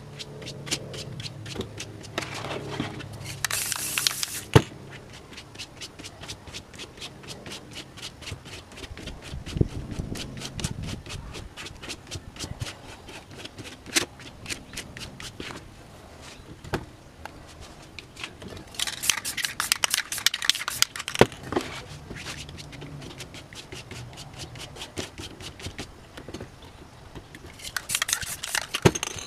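Hands rubbing and pressing paper over wet spray paint on a poster board, with small scrapes and taps. Three brief loud bursts from a spray paint can break in, about four seconds in, around twenty seconds in and near the end.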